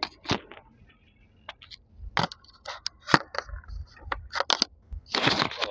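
Handling noise of a phone being held and moved: irregular knocks, clicks and scrapes of fingers against it, close to its microphone, with a longer rubbing stretch near the end.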